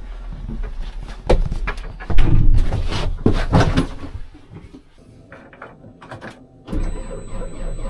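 Clunks and knocks inside a JCB wheel loader's cab: the cab door and fittings being shut and handled. Near the end a low, steady engine rumble with a faint high whine comes in.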